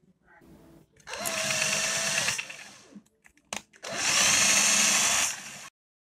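Small power drill running in two bursts of about a second and a half each, a steady motor whine with a cutting hiss, turning an M3×0.5 tap to cut a thread for a screw.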